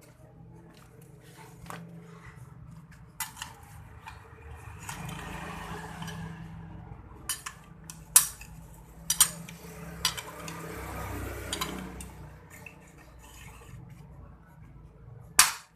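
Metal tools and scooter parts clinking and scraping against each other, with scattered sharp clicks and a loud hard knock near the end.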